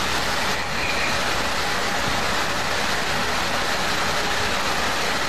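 Steady, even rushing noise with no clear tone or rhythm.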